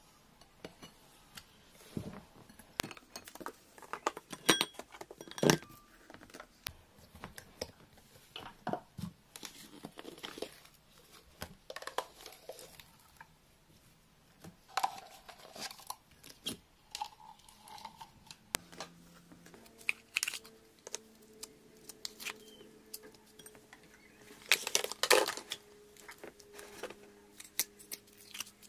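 Hands handling plastic slime tubs and slime: lids clicking and knocking against a glass bowl, slime squished and scooped out of a tub, and a paper towel crinkling. A faint steady hum comes in about two-thirds of the way through.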